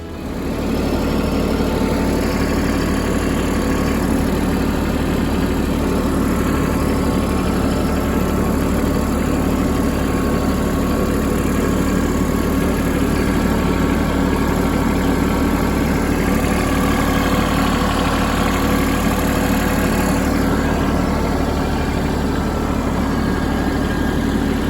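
Compact tractor's engine running steadily at an even speed.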